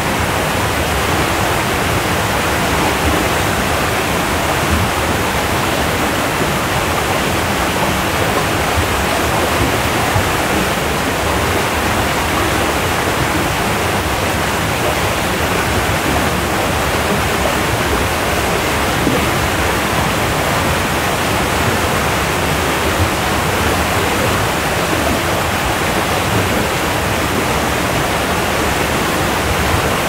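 Waterfall: a steady, unbroken rush of falling water.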